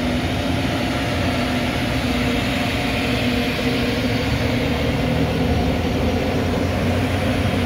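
Car wash tunnel machinery running: a steady low hum with an even hiss over it, heard from inside the car's cabin.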